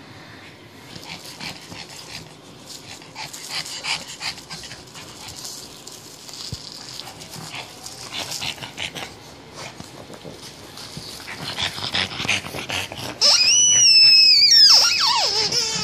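A pug sniffing and mouthing a plush fox squeaker toy, with short snuffles and rustles, then about 13 seconds in the toy's squeaker gives one long, loud squeak that starts high and drops steeply in pitch.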